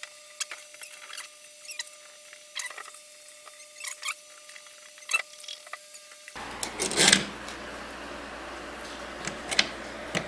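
Scattered small clicks, taps and squeaks of steel bolts and nuts being handled and pushed through the bolt holes of a polycarbonate fish-tank window. About six seconds in a steady hum starts, and there is a louder rattle of hardware just after it.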